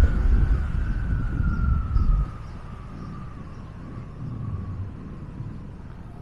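Motorcycle riding along a street, with heavy wind rumble on the microphone that drops off sharply about two seconds in. A thin whine runs over it and slowly falls in pitch.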